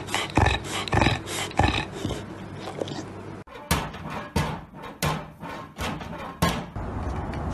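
A dog making short repeated sounds, about three a second, for the first few seconds. Then a cat pawing at a plastic cat flap, which knocks and rattles several times.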